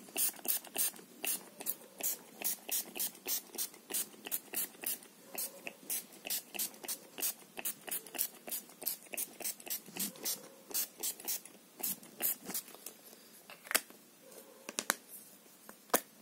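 A hand-pumped spray bottle squirted repeatedly close to the microphone, a quick regular run of short hissing sprays about three a second that thins out to a few separate sprays near the end.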